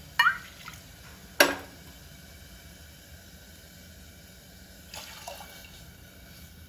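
Water poured from a glass bowl into a pressure cooker, with a ringing clink and then a sharper, louder knock of the vessels against the cooker within the first second and a half, and a softer clatter about five seconds in.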